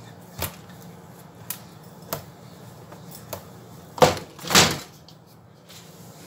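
Dough being rolled out with a wooden rolling pin on a silicone mat: a few light wooden clicks and knocks, then two louder knocks close together about four seconds in.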